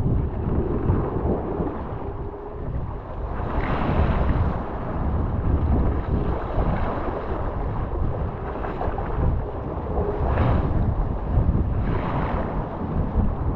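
Wind buffeting a boat-mounted microphone over the rush of choppy water past a kayak's hull, with splashes surging up every second or two as paddle strokes and waves hit the water.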